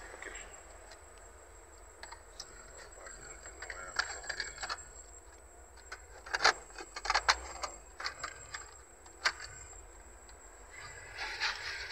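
Metal-cased car stereo head unit being pushed and fitted into its dash slot: a run of irregular clicks, knocks and rattles, the sharpest in the middle of it.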